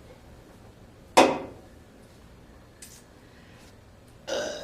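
A loud, abrupt burp about a second in, cut off quickly, then a shorter, quieter voiced sound near the end.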